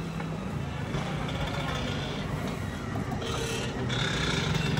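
A vehicle running steadily: a low engine hum over rumbling noise, with a brief hiss a little past the middle.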